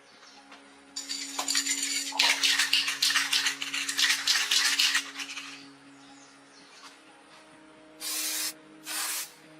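About four seconds of fast rattling, scraping metal, then two short hisses of spray from an aerosol can.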